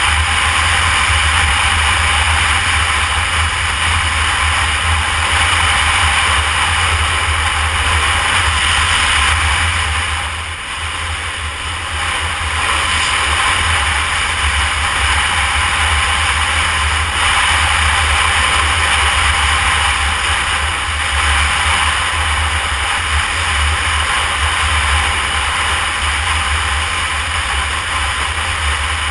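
Heavy wind rush on the microphone from a riding Honda CBR250R motorcycle, its single-cylinder engine running underneath at road speed. The noise is steady and eases briefly about ten seconds in.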